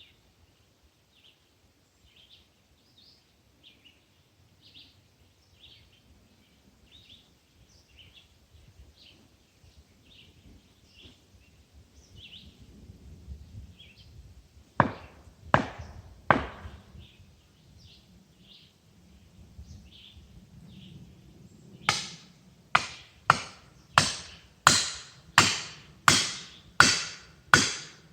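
Sharp blows struck into dead ash wood with a hand tool: three, a pause of several seconds, then about nine in a steady run, each with a short ring. A small bird chirps repeatedly in the background.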